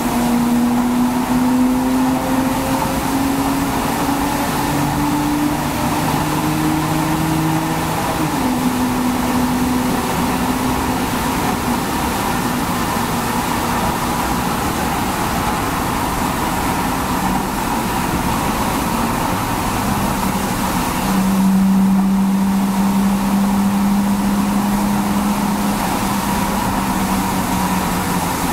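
BMW N52B30A 3.0-litre straight-six with an aftermarket exhaust pulling hard under acceleration. The revs climb steadily, drop sharply at an automatic upshift about eight seconds in, then sag slowly at a steady mid-range drone. The engine note grows louder about twenty seconds in.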